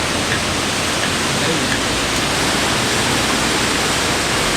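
Steady rushing roar of the Li Phi waterfall, the Mekong River pouring through rocky rapids.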